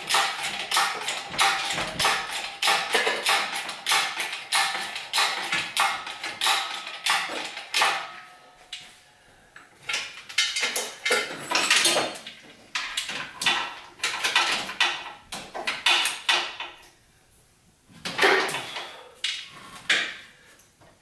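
Quick runs of metallic clicks and clanks, several a second, with short pauses: metal tools and parts being worked during an engine pull with a hydraulic engine hoist.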